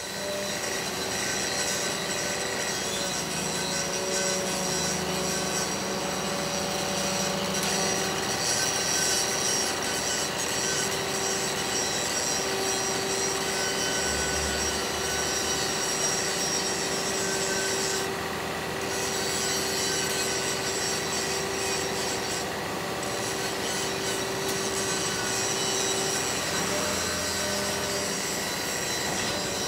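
Heavy crane machinery running steadily: a dense, even mechanical noise with several steady whining tones over it.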